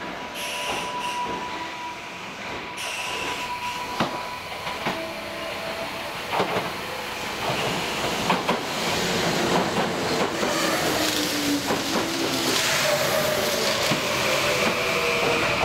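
Kintetsu electric trains pulling into the station: wheels clicking over rail joints, with a motor whine that falls slowly in pitch as they brake. Both the 9000 series two-car local and the 22600 series Ace limited express are moving in on adjacent tracks.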